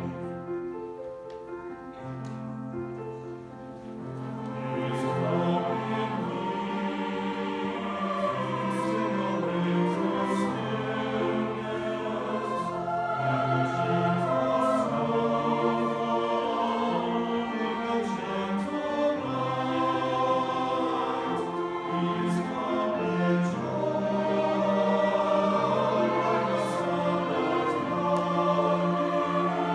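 Mixed choir singing a Christmas carol with violins and other strings accompanying, in held, overlapping chords. It starts softly and swells to a fuller sound about five seconds in.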